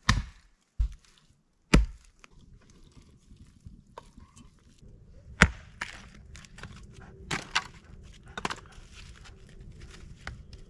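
A series of sharp knocks and cracks: three loud ones in the first two seconds, then irregular smaller knocks and snaps over a faint background.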